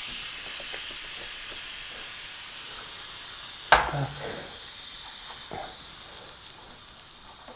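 Air hissing out of a tubeless Vee Tire Snow Avalanche fat-bike tyre through its open valve with the core unscrewed, fading steadily as the tyre deflates. One sharp knock a little before halfway.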